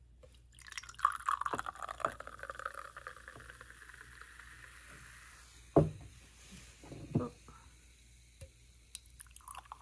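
Canned CHOYA sparkling umeshu poured into a glass jar, a steady fizzing pour lasting about five seconds. It is followed by a sharp knock, the loudest sound, about six seconds in, and a softer one a second later.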